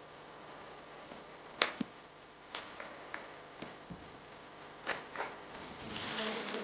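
Handling of a keyboard and its packaging during unboxing: scattered sharp clicks and knocks, then a rustle starting near the end.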